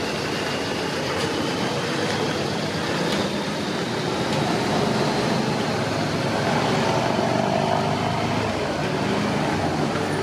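Road traffic noise: vehicle engines running on a busy street, a steady hum without sharp events.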